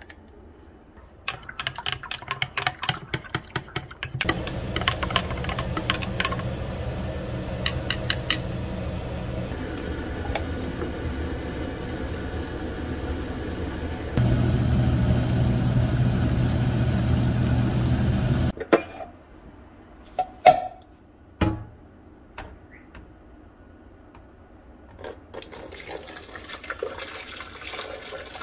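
Water running steadily from a kitchen tap for about fourteen seconds, heavier for its last few seconds before it is turned off, with clinks of dishes before it and a few sharp knocks after.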